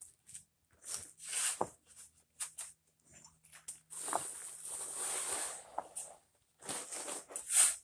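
Steel square-point shovel scraping and scooping sand from a pile on pavers, in several rough bursts: a longer scrape of about two seconds starting about four seconds in, and the loudest one near the end.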